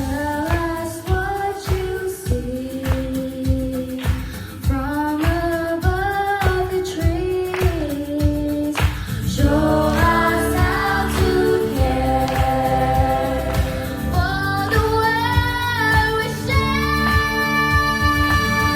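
A song sung by students: a sung melody line over a steady beat.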